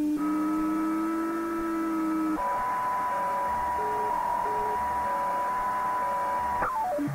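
Spooky2 remote-transmission signal received on a shortwave radio in the 19 m band: steady electronic tones that jump to a new pitch about two seconds in, with short beeps under a held tone, then a fast falling sweep near the end.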